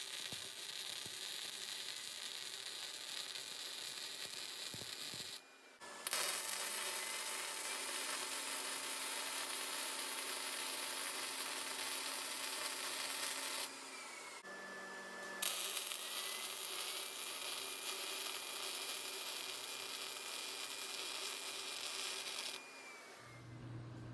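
Wire-feed welder laying short weld beads: a steady hiss of the arc in three runs, breaking off briefly about five seconds in and again around fourteen seconds, and stopping shortly before the end. The beads are laid on opposite sections of the joint in turn.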